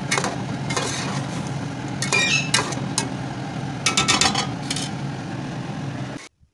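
A metal slotted spoon stirs a watery pot of peas and potatoes, clinking against the sides of the metal pot in irregular clusters over a steady low rushing noise. The sound cuts off abruptly near the end.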